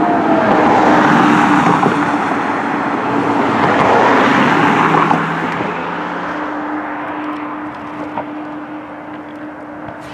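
Pierce fire apparatus driving off on an emergency response, engine and warning sounds fading with distance. A siren tone slides down in pitch right at the start, and a steady tone carries on under the fading traffic noise.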